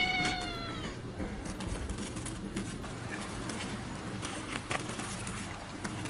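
A cat meowing once: a single high call that falls slightly in pitch and fades about a second in. After it come only faint background noise and a few light clicks.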